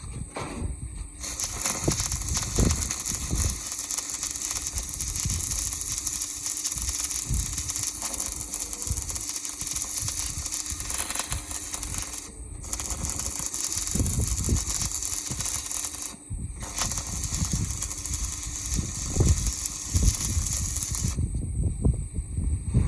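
Electric arc welding on a plough: a steady, loud crackling hiss that breaks off briefly twice and stops about two seconds before the end. Low knocks from handling the metal show here and there, most in the last third.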